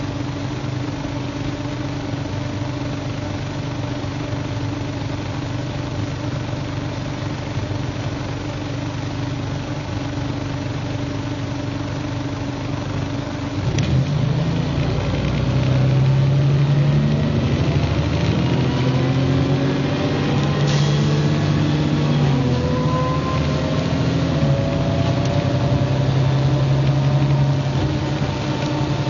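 MCW Metrobus double-decker bus engine idling steadily, then about halfway through it pulls away and accelerates, the engine note rising, dropping back at a gear change and rising again.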